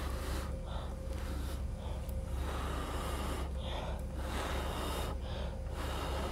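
Mouth blowing hard onto wet acrylic paint in a Dutch pour, a run of strong blows of breath about one a second, to push the paint out and spread it across the canvas.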